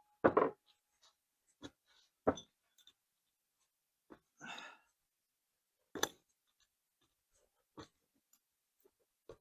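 Scattered clicks and light knocks of small metal carburetor parts and hand tools being handled and set down on a workbench while a Zenith carburetor's choke shaft assembly is taken apart, with a brief scrape about halfway through.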